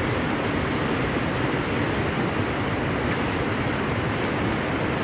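Wind buffeting the phone's microphone: a steady rushing noise with a rough, fluttering low rumble.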